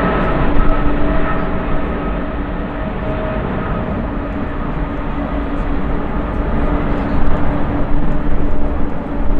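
Jet airliner's engines at takeoff thrust: a loud, dense rumble with a steady hum-like tone running through it.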